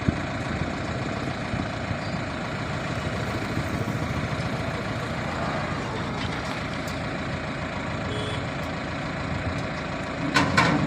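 Heavy diesel engine of a working machine running steadily, with a brief louder burst near the end.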